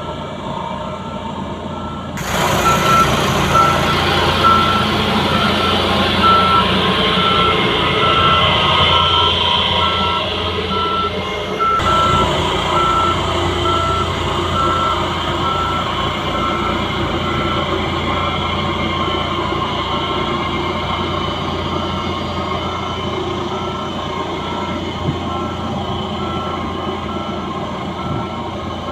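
Skid steer with a vibratory roller attachment running under load, its reversing alarm beeping steadily about twice a second. The machine noise and the beeping start loudly about two seconds in.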